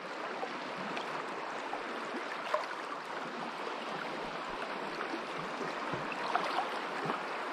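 Shallow sea water lapping and washing steadily around the wader and the landing net, with a few faint clicks.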